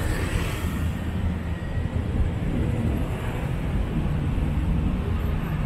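Steady street traffic: vehicle engines running with a continuous low rumble.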